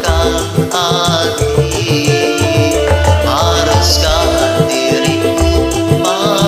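Background music with singing over a steady bass line.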